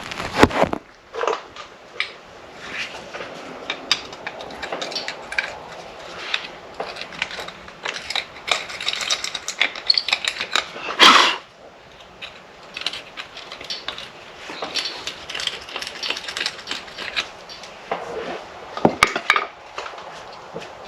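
Scattered metal clanks, knocks and scraping from hand work on an engine being shifted into line with its mounts. One louder knock comes about halfway through, and another near the end.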